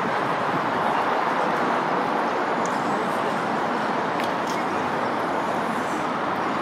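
Steady busy city-street ambience: traffic noise mixed with the hubbub of a crowd of pedestrians, with a few faint clicks around the middle.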